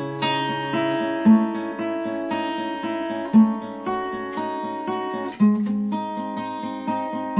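Acoustic guitar playing an instrumental introduction, picked and strummed in a steady rhythm, with a new chord marked by a stronger bass note about every two seconds.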